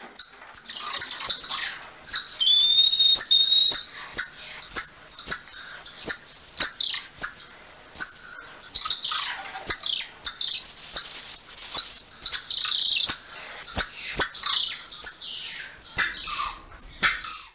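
Golden lion tamarins calling: a rapid string of high chirps and squeaks, with two long, steady whistles about two seconds in and about ten seconds in, and sharp clicks scattered between.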